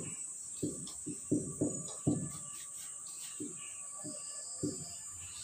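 Marker squeaking on a whiteboard in short, irregular strokes as words are written.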